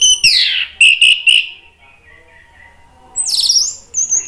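Orange-headed thrush singing loud whistled phrases. A falling note and three quick short notes come first, then after a short pause a rising phrase that runs into a high, rapid trill.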